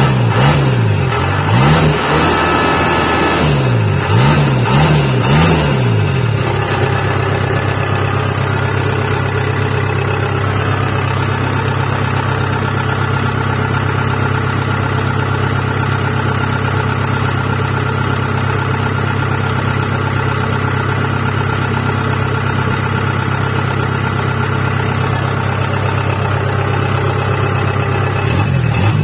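Kubota DC70 combine harvester's diesel engine revved up and down several times in quick succession, then held running at a steady speed.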